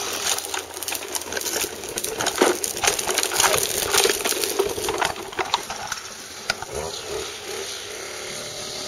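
Hard plastic wheels of a toddler's tricycle rattling and clattering over brick pavers, with many quick clicks and knocks, easing off to a softer sound in the last few seconds as the tricycle rolls onto grass.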